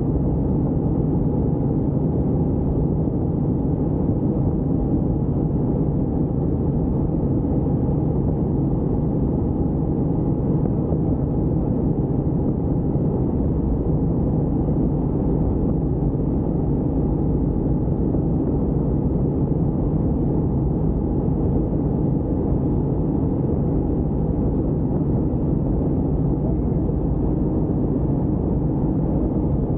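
Helicopter rotor and engine making a steady low drone.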